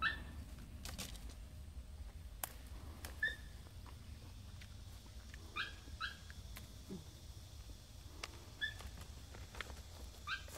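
A worked-up dog whining in short, high, upward-sliding yelps, about six of them spread through the stretch. A few sharp clicks come in between as chilli peppers are snapped off the plants.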